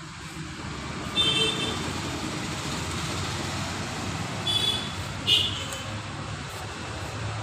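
Steady road traffic rumble with three short, high vehicle horn toots: one about a second in and two more close together near five seconds in.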